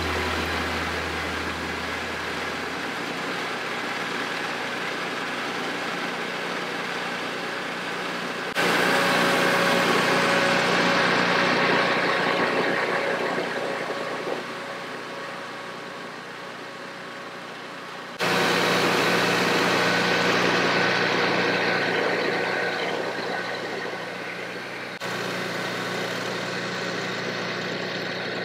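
Peterson Slabber chainsaw mill running under load as its .404 chain saws lengthwise through a waterlogged sinker log, a steady engine and chain-cutting noise. The level jumps up abruptly about nine seconds in and again about eighteen seconds in.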